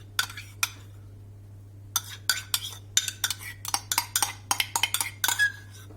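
A spoon clinking and scraping against cookware while béchamel sauce is spooned out: a few clinks, a pause of about a second, then a quick run of sharp clinks with a brief ring near the end.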